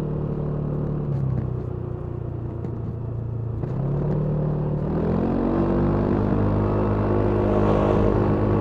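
Kymco Downtown 350i scooter's single-cylinder engine through its stock exhaust, heard from the rider's seat. It runs at low revs on a light throttle, then about halfway through the revs rise and hold steady, louder, as the scooter accelerates.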